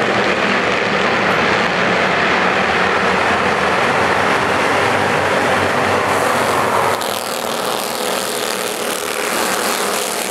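A pack of Bandolero race cars lapping the oval, their small engines making a dense, steady drone that eases off about seven seconds in.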